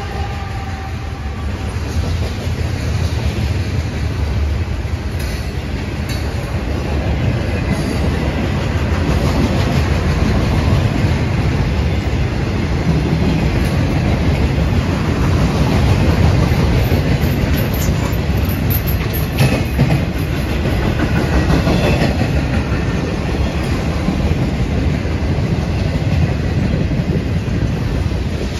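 Railroad train passing close by: a steady rumble of steel wheels on the rails with clickety-clack over the rail joints, growing louder over the first several seconds and then holding.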